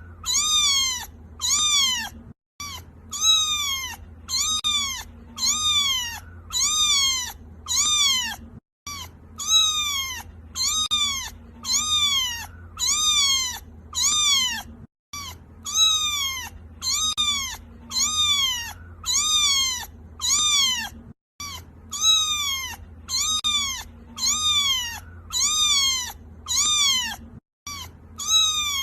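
A kitten crying, meowing over and over in short high-pitched calls that rise and then fall, about one and a half calls a second. The run breaks off in a brief silent gap about every six seconds.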